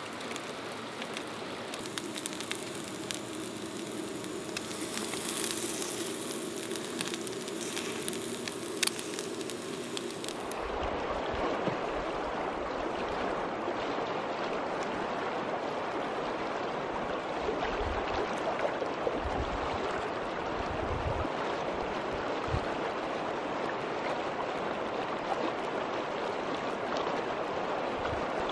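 Food sizzling in a stainless frying pan, with a few light clicks of a spatula. About ten seconds in, this gives way to the steady rush of a fast river running over rocks, with gusts of wind buffeting the microphone.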